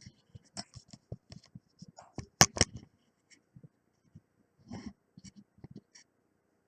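Irregular mechanical clicks and clacks from a 1950 Smith Corona Silent typewriter as paper is loaded into it, with a louder cluster of clacks about two and a half seconds in.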